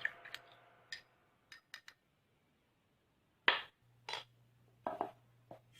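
A spoon stirring a drink in a glass, clinking against the glass in a handful of short, irregular taps, the loudest about three and a half seconds in.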